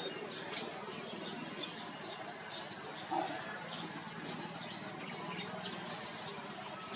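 Small birds chirping, with short high chirps repeating throughout over steady outdoor background noise. A brief, lower sound stands out about three seconds in.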